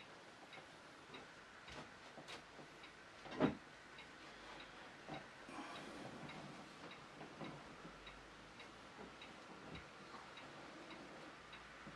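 Faint, steady ticking of a clock, with soft handling noises from a wooden lure and a glue bottle held in gloved hands. One louder knock comes about three and a half seconds in.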